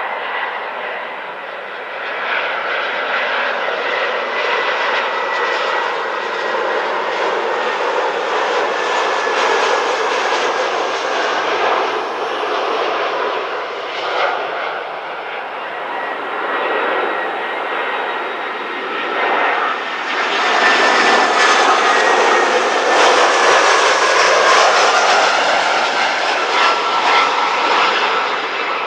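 Airbus A320-family twin-jet airliner on landing approach, its engines making a steady jet noise with a high whine that slowly falls in pitch. The noise swells twice, louder in the second half.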